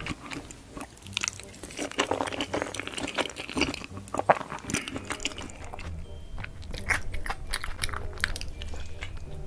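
Close-miked eating sounds: a person chewing a mouthful of ketchup spaghetti, with irregular wet clicks of the mouth, and near the end a different eater chewing.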